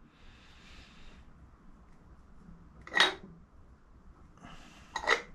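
Parts being handled at a workbench: faint rustling, then two sharp knocks, about three seconds in and again near the end.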